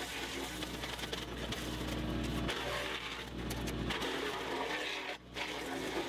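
Tractor-driven Woodland Mills WC68 PTO wood chipper running, with the tractor engine under it, in a steady mechanical drone that swells and eases.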